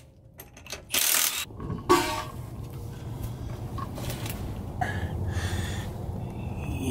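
Hand-tool work on car suspension metal: a short rasping burst about a second in and a sharp metallic clink about two seconds in, over a low steady rumble.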